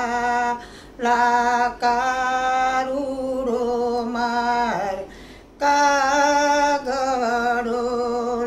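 A woman singing a Gujarati devotional kirtan (bhajan), holding long notes with a wavering pitch. She breaks off twice briefly.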